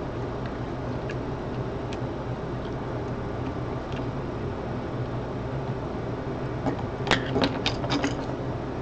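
Faint ticks from a small Phillips screwdriver turning a tiny screw into the plastic coupler mount of an HO-scale boxcar kit, over a steady low hum. About seven seconds in comes a quick run of sharp clicks as the screwdriver is put down on the desk and the plastic car is handled.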